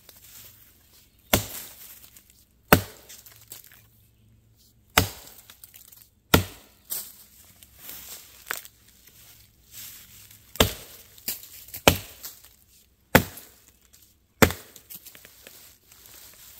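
Forest axe chopping into a dead Virginia pine log to buck it in two: about eight sharp blows roughly a second and a half apart, with a stretch of lighter knocks midway.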